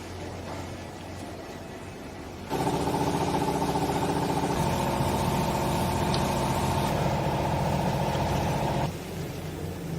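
Hydraulic baler's pump unit running with a steady hum. About two and a half seconds in it jumps to a much louder, pitched machine whine for about six seconds, then drops back to the hum.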